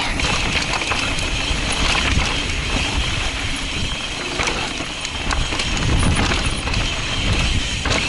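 Mountain bike riding fast over rocky singletrack, heard from an action camera on the rider: steady wind rumble on the microphone, with scattered knocks and rattles from the bike as it rolls over rock and dirt.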